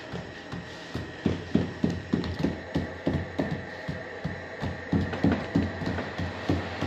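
Quick runs of dull thuds, about four a second, from the edge of a plastic dough scraper pressed repeatedly into rounds of flatbread dough on a floured table, scoring rows of lines into them. A steady high hum runs underneath.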